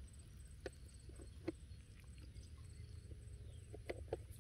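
Quiet outdoor background: a faint, evenly repeating insect chirr high up over a low rumble, with a few soft taps, two of them close together near the end.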